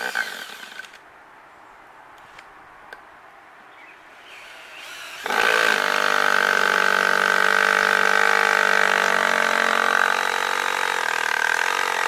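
Cordless drill/driver driving a screw into a pine board: a brief burst near the start, then from about five seconds in a long, steady run of the motor's whine. The battery is low, and she doubts it will hold out.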